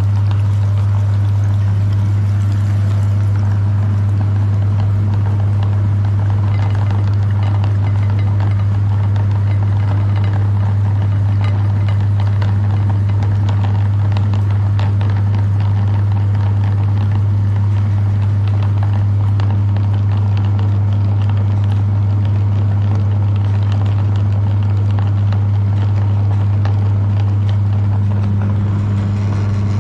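Electric meat grinder's motor running steadily with a strong, even low hum, with faint clicks and crackles over it.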